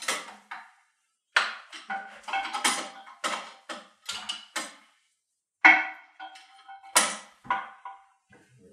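Metallic clicks, clanks and rattles as a compound bow is unfastened from a metal bow press and lifted out, some with a brief ringing. The sounds come in irregular clusters, with the loudest knocks about six and seven seconds in.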